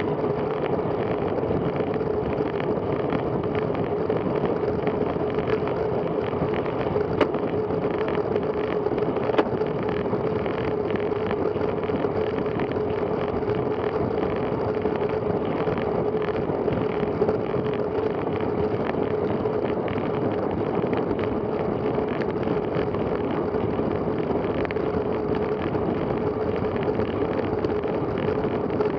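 Steady rush of wind on the microphone of a camera on a road bicycle riding at about 24 to 30 mph, mixed with road noise, over a steady hum.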